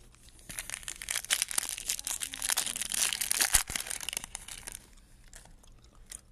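Foil wrapper of a Topps Chrome baseball card pack crinkling and tearing as it is ripped open, for about four seconds, then a few faint ticks as the cards are slid out.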